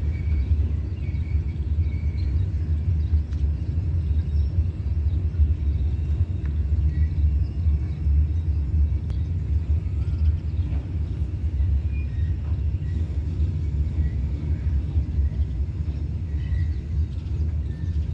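Freight wagons of a goods train rolling past on the rails: a steady low rumble of steel wheels on track that does not let up.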